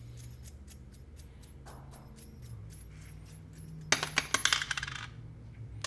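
Small metal hardware clicking on a workbench as screws and parts are worked out: a run of light ticks, then a denser clatter of small metal pieces about four seconds in.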